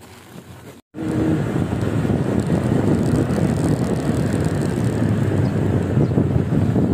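Motorcycle riding along a street: steady engine and road noise mixed with wind on the microphone, starting suddenly about a second in.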